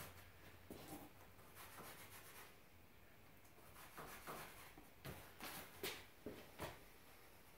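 Faint scratching of a pen marking a foam board, with soft rubbing and shuffling, and a few sharper taps and clicks in the last few seconds.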